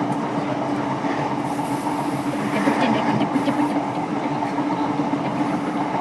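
Running noise of a South West Trains suburban electric train, heard from inside the carriage: a steady rumble of wheels on rails with a constant hum, and a few light clicks a little before the middle.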